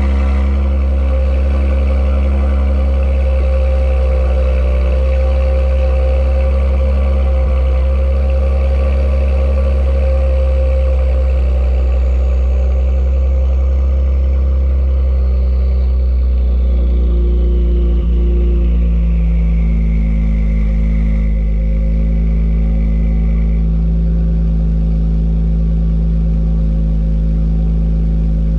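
Genesis G70's 3.3-litre twin-turbo V6 idling after a cold start, heard through Ark catless secondary downpipes and a catback exhaust. The idle note steps a little lower about two-thirds of the way through, and a faint high whine slowly falls in pitch.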